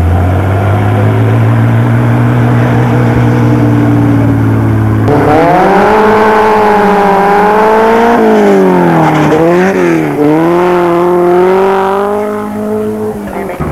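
Racing car engines running at full throttle. First comes a steady high-revving note, then a second car whose engine climbs and falls back several times as it accelerates up the course.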